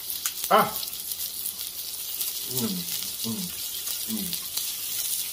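Food sizzling on the grill plate of a tabletop hotpot, a steady hiss. A few short murmured voice sounds come over it.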